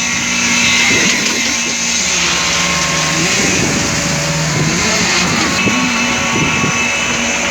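Heavy engine of concrete-placing machinery running steadily. Its speed drops about two seconds in and picks up again near the end.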